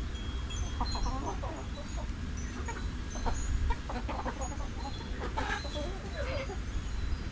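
A flock of chickens clucking at feeding time, many short overlapping calls with scattered small clicks over a steady low rumble.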